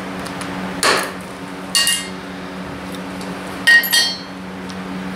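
Diagonal cutters and a thin nail handled on a steel anvil while the nail is cut to length: four sharp metal clinks, the later three ringing.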